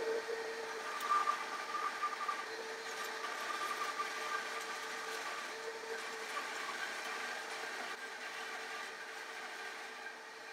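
Grizzly G0555XH 14-inch bandsaw running steadily, its Wood Slicer blade resawing a cherry board about 11.5 inches wide: a steady motor and blade hum with two held tones over a hiss of cutting, easing slightly in level near the end.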